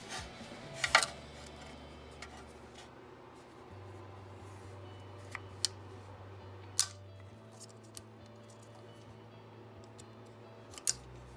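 Several sharp clicks and snaps of a small screwdriver working at the plastic clips and cap that hold a brake pad wear sensor's cable; the loudest is a double click about a second in. A low steady hum runs underneath.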